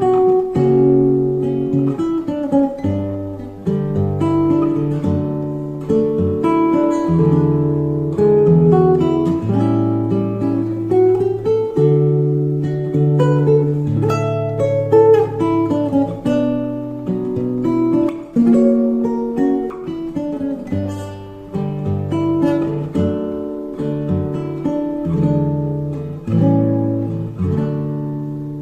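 Acoustic guitar music: plucked notes and chords over a moving bass line.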